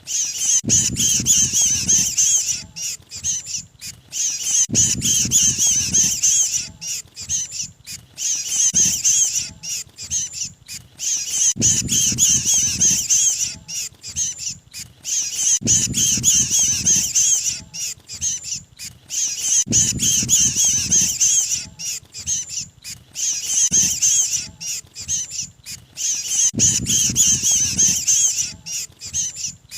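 Looped lure recording of small mantenan birds giving rapid, high-pitched distress chatter, the 'kejepit' (trapped-bird) call used to draw other mantenan in. The chatter is continuous, and a low rustle comes back about every four seconds.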